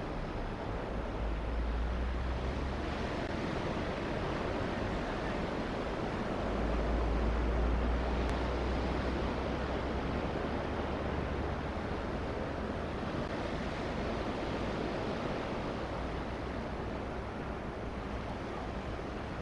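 Surf washing on the beach, a steady rush of wave noise, with wind buffeting the microphone in low gusts at the start and again from about a third of the way in.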